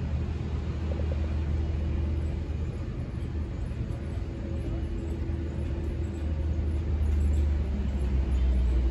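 City street traffic: cars and buses driving past, a steady low rumble with no single event standing out.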